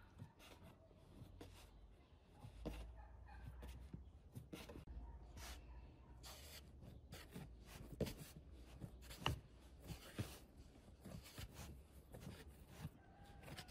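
Hands kneading a ball of dough on a floured wooden board: faint, irregular soft taps, presses and rubbing.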